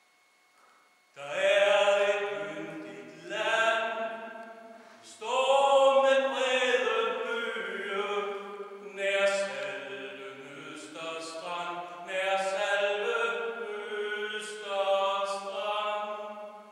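A man singing a song solo and unaccompanied in an underground mine gallery. He begins about a second in, after near silence, and carries on in phrases of a second or two.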